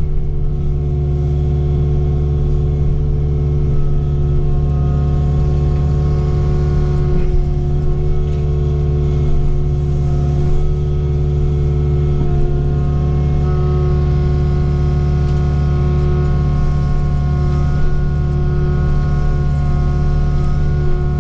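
Excavator diesel engine running steadily at a constant speed as the machine works, with a few faint clicks.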